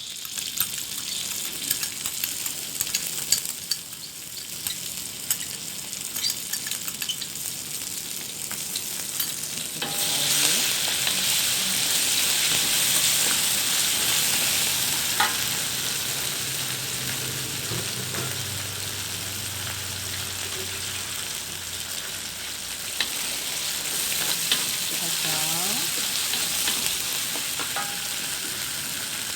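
Dried chillies sizzling and crackling in hot oil with crisp-fried shallots, lemongrass and curry leaves, stirred in the pan with scattered sharp ticks from the utensil. The sizzle grows louder about ten seconds in.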